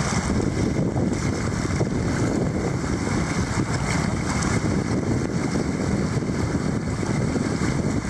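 Rushing whitewater of a river rapid around an inflatable raft: a steady, even rush of water, mixed with wind buffeting the microphone.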